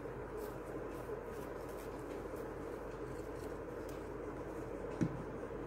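Faint rustling of crepe paper strips being handled, over a steady low background hum, with one light tap about five seconds in.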